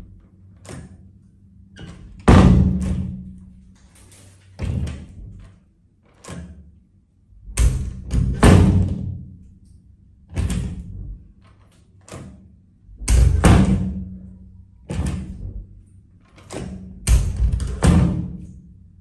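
Metal lever door handle pressed down and released over and over: sharp latch clicks and clunks with a short metallic ring, one every second or two, some in quick pairs or triples.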